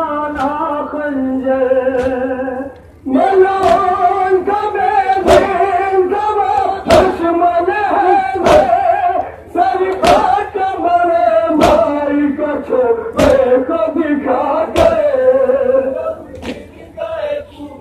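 Men chanting a Muharram noha in unison over a microphone, in long, drawn-out sung lines, punctuated by a loud, sharp beat about every second and a half: the mourners' matam, chest-beating in time with the lament.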